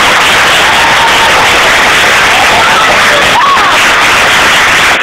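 Audience cheering and applauding loudly, close enough to the phone's microphone that it turns into a harsh hiss, with a few voices shouting through.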